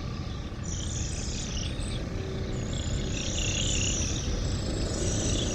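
Outdoor ambience: a steady low rumble of wind on the microphone, with a high, wavering insect chorus above it.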